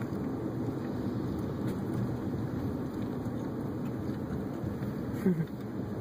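Steady road and engine noise heard inside a moving car. About five seconds in, a brief louder sound falls in pitch.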